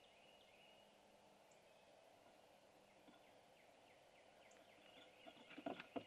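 Barred owlet losing its footing and falling from the perch beside the wooden nest box: a quick flurry of scrapes and knocks, with wings and talons against the box, in the last second. Before it, only faint bird calls.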